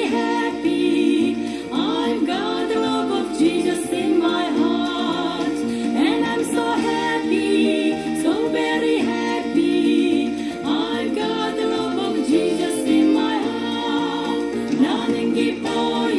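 Christian praise song: singing voices over steady instrumental accompaniment.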